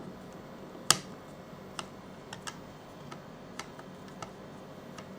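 Small screwdriver clicking against the tiny retaining screw of an M.2 NVMe SSD as it is checked for tightness: one sharp click about a second in, then scattered faint ticks.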